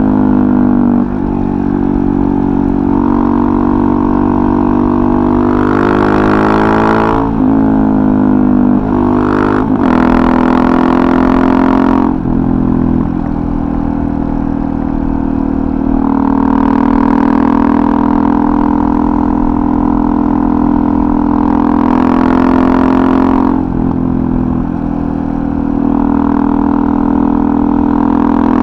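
Suzuki DR-Z400SM supermoto's single-cylinder four-stroke engine through a full FMF Powercore 4 exhaust, ridden under way. It holds steady cruising revs for long stretches, and its pitch drops and climbs again at several gear changes.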